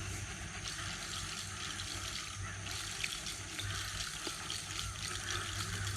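Small stream trickling steadily, a continuous fine splashing and babbling of shallow running water.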